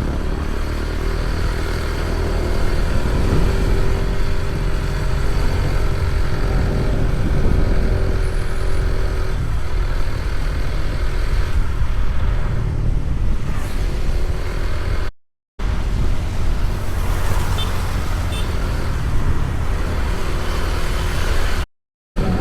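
A vehicle travelling on the road: a steady, loud low rumble of engine and road noise. The sound cuts out completely twice, briefly, in the second half.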